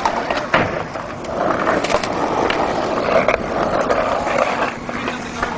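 Skateboard wheels rolling along, a steady grinding rumble with a few sharp clacks of the board.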